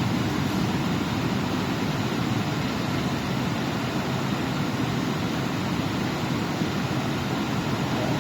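YC-10S industrial dehumidifier running under test: the steady, unchanging rush of its fan.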